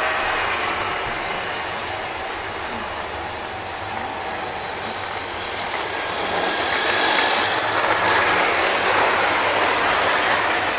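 00 gauge model trains running on track: a steady whirr of small electric motors and the rattle of wheels on rail. It grows louder from about six seconds in as a model diesel locomotive hauling coaches passes close, with a brief high whine near the loudest point.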